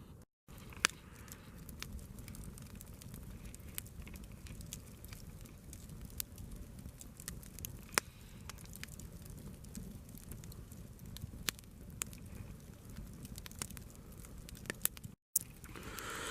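Wood campfire burning, crackling with scattered sharp pops at irregular intervals over a steady low rumble.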